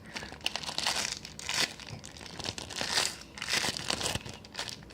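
Crinkling and rustling as a homemade squishy is squeezed and handled, in a run of irregular crackly bursts.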